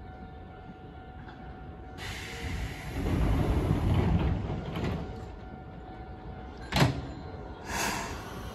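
Doors of a Nankai Koya Line stainless-steel commuter train closing at the platform: a noisy rush and rumble of the sliding doors shutting from about two seconds in, then a sharp bang near seven seconds as the conductor's crew door is pulled shut, followed by a short noisy burst.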